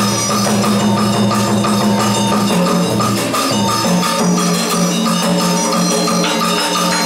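Traditional Vietnamese water puppet theatre music: held low notes that shift pitch about two and a half and four seconds in, over a steady tapping percussion beat.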